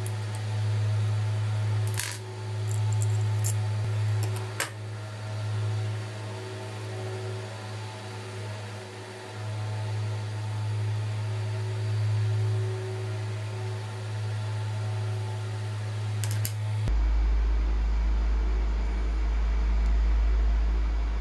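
A steady low hum, with a few sharp little clicks and taps as the microdrive's small metal parts are handled. Near the end the hum cuts over abruptly to a lower-pitched one.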